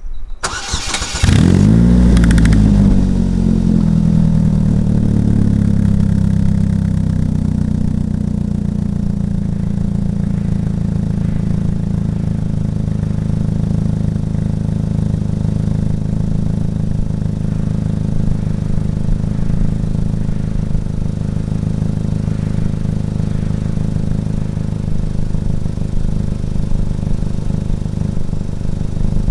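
Polaris Slingshot engine through a DNT Racing aftermarket exhaust, started: a short crank, then it catches about a second in with a brief rev flare and settles into a steady idle.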